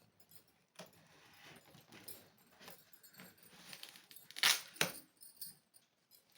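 Small clicks and rustles of things being handled, with a louder, sharp rustle or clatter about four and a half seconds in and a shorter one just after.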